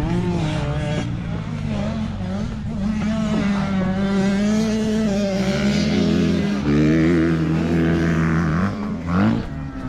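Motocross dirt bike engine running and revving, its pitch rising and falling with the throttle, with quick rising sweeps about a second in and again near the end.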